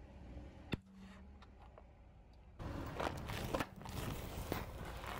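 Car tyre rolling onto and crushing a plastic container: a sudden burst of crackling and crunching about two and a half seconds in, full of sharp cracks, that carries on. A single sharp click comes just before the first second.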